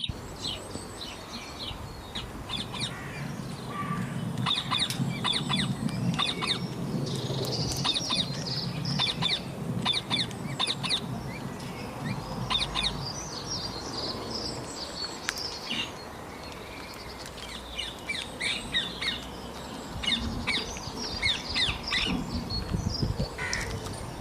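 Small birds chirping and squawking in many quick, high calls that come and go throughout, over a low rustling background noise.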